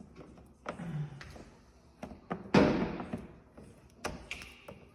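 Handling noises from working paint protection film onto a truck bumper: scattered knocks and taps, with one louder sudden burst of noise about two and a half seconds in that fades over half a second.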